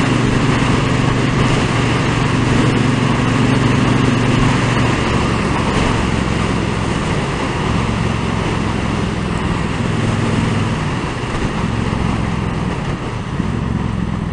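2017 Triumph Bobber's parallel-twin engine running through its stock exhaust under way, with wind rush, heard from the rider's helmet. The engine note eases off about five seconds in and gets a little quieter near the end.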